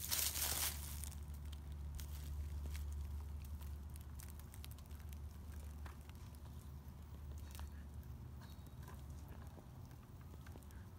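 Rustling in dry leaf litter as a Siberian husky puppy moves through it, loudest in the first second, then scattered small crackles and clicks as it settles in the leaves, over a low steady rumble.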